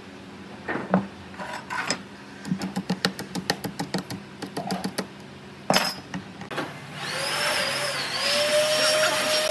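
Metal bicycle chain clicking link by link as it is fed around the sprocket of a wooden bicycle frame, with a knock about halfway through. In the last few seconds a louder steady mechanical whirring with a wavering whine takes over.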